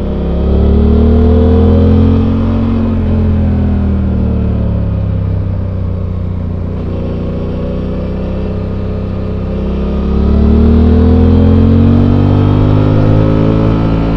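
Suzuki V-Strom 800's 776 cc parallel-twin engine on its stock exhaust, recorded on the bike while riding. The throttle opens about half a second in and the engine pitch climbs, then eases off and falls back a few seconds later. It climbs again under throttle about ten seconds in.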